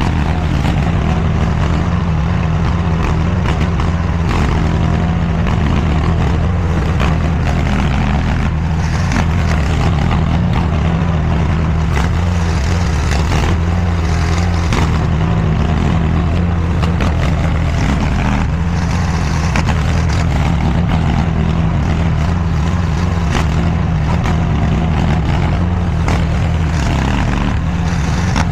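Diggit SCL850 stand-behind mini skid steer's engine running steadily, with occasional short clatters from the machine as it works dirt.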